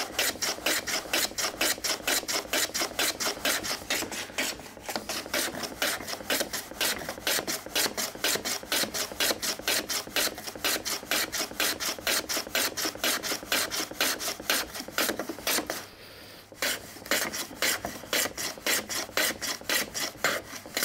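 Rider No. 5 jack plane on its side on a shooting board, shaving the end grain of a small wooden panel. The strokes come in a quick, even rhythm, with a brief pause about sixteen seconds in.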